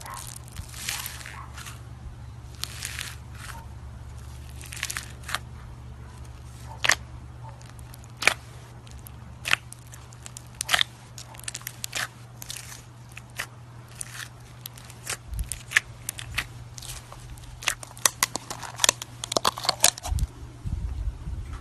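Slime being squeezed and poked, giving irregular sharp crackles and pops, with a dense run of crackling near the end.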